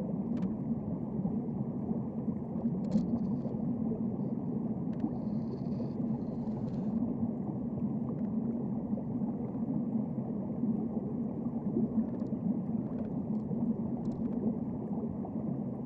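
Steady, muffled underwater rumble heard through a waterproof camera housing, with a few faint clicks.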